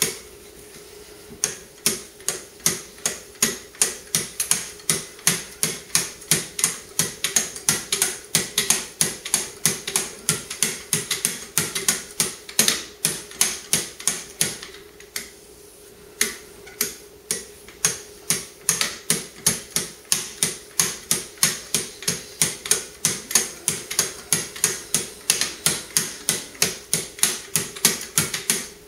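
Wicked Edge guided sharpener's wetted ceramic paddles scraping along the edge of a Zero Tolerance knife blade in quick, regular alternating strokes, about two or three a second, with a short pause about halfway through.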